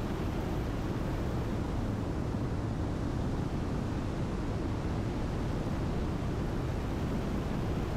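Steady in-flight noise of a Diamond DA62 twin turbodiesel, its engines and airflow making an even rush with no clear pitch.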